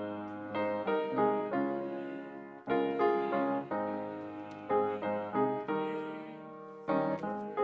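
Piano playing a slow piece, chords struck every second or so and left to fade.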